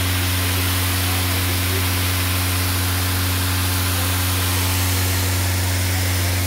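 Fire hose nozzle sending out a strong jet of water, a steady hiss, over the steady low hum of the engine driving the fire pump.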